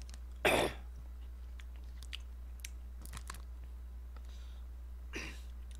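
Close-miked chewing of instant ramen noodles, with small wet mouth clicks. Two short, loud noisy bursts come about half a second in and again near the end, over a steady low hum.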